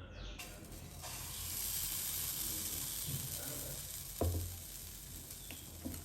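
Pancake batter sizzling in hot ghee in a frying pan. The sizzle starts suddenly about half a second in and eases after about four seconds. A sharp knock about four seconds in is the loudest sound.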